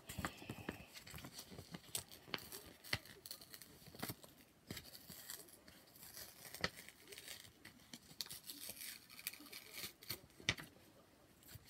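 A paper note or card being handled: faint rustling of paper with scattered light clicks and taps, a few of them sharper.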